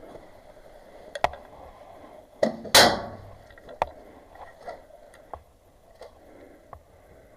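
Spring airsoft shotgun (UTG tri-shot) being worked and fired: a few sharp clacks and one loud snap about three seconds in.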